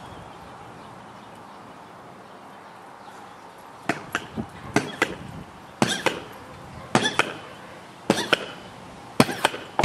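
Metal pogo stick bouncing on hard ground: sharp knocks and clanks, mostly in pairs, coming about once a second from about four seconds in, over a faint steady hiss.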